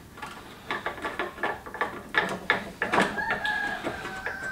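Metal clicking and clinking of a hose clamp being worked with a tool against the diesel heater's sheet-metal housing, with a short high steady tone from about three seconds in.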